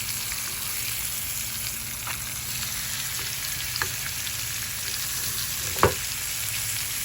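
Chicken pieces frying in a small amount of olive oil in a pan, a steady sizzle. A few faint clicks and one louder knock come near the end.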